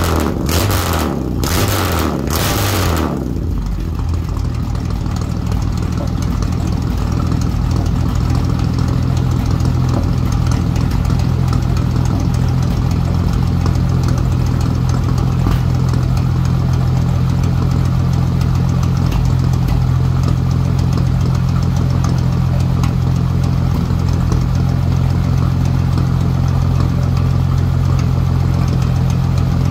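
1955 Chevrolet's engine heard from behind at its twin exhaust tips, running unevenly for the first few seconds, then settling into a steady idle.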